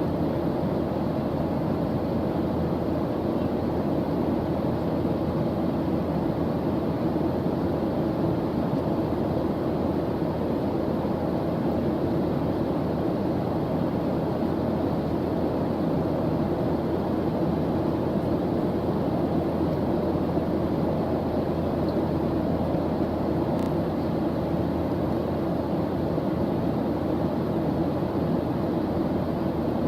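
Steady white-noise background track: an even, deep rushing hiss that does not change.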